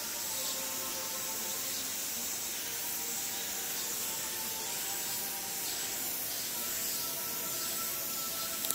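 Steady high hiss of background noise, with a faint, intermittent high buzz over it and one short sharp click near the end.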